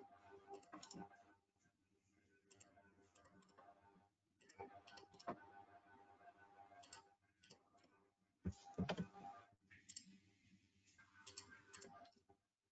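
Faint, irregular computer mouse clicks, with a louder knock about two-thirds of the way through.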